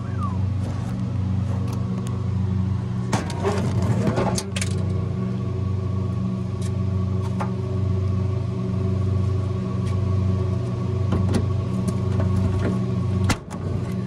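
A steady mechanical hum from nearby running equipment, overlaid with clicks, knocks and rattles as cartridge fuses are forced into tight fuse clips: a cluster about three to four and a half seconds in and one sharp click near the end.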